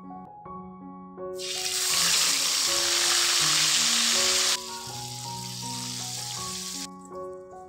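Ground chili spice paste frying in hot oil in a wok: a loud sizzle starts about a second in, drops suddenly to a softer sizzle a little past halfway, and cuts off near the end.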